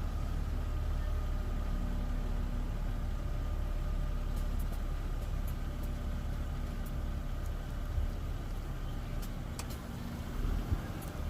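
BMW E36's engine idling steadily, with a few light clicks near the end.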